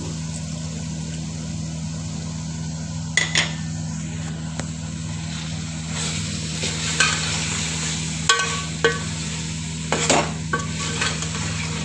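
Steel ladle stirring minced meat frying in oil in a steel pot, with sizzling and scraping and a series of sharp ringing clinks as the ladle strikes the pot, first about three seconds in and then repeatedly over the last five seconds. A steady low hum runs underneath.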